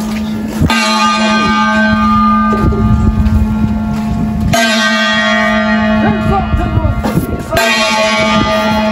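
A large bell struck slowly, three strokes about three to four seconds apart, each ringing on into the next.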